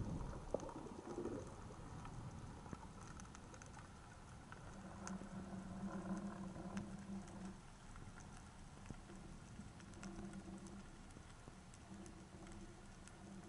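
Faint underwater sound heard through a camera housing: a constant scatter of small clicks and crackles over the reef. A low water rush fades in the first second or so, and a low hum comes and goes several times, loudest about five to seven seconds in.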